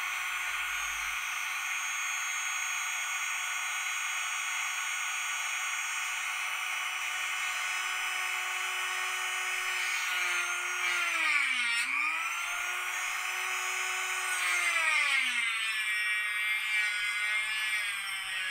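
Dremel rotary tool with a 1-inch cutoff wheel cutting 1/8-inch smoked plexiglass, a steady high-pitched whine. The pitch dips sharply about two-thirds of the way in, dips again soon after, and then runs lower toward the end.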